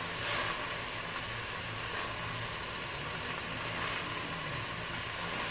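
Fried rice frying in a pan over a propane gas burner: a steady hiss with a low hum underneath.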